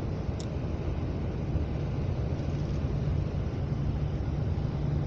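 Steady low drone of a coach bus's engine and road noise, heard from inside the passenger cabin, with one brief faint tick about half a second in.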